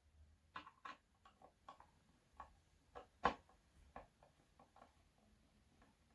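Scattered light clicks and taps from handling tools and parts during the teardown of a speaker cabinet, irregular and faint, with one louder knock a little past three seconds in.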